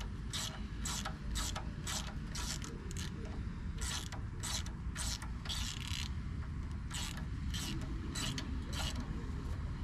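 Hand ratchet clicking in quick repeated back-and-forth strokes, about two or three a second with a few short pauses, as bolts are worked loose during an engine teardown.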